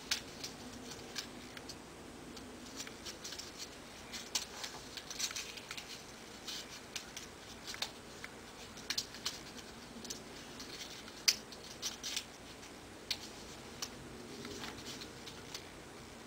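Origami paper being folded and creased by hand: irregular crinkles and crisp little snaps of paper, the sharpest about eleven seconds in.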